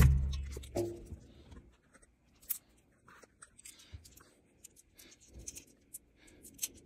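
A knock dying away at the start and another just under a second in, then scattered light clicks, taps and rustles of objects being handled.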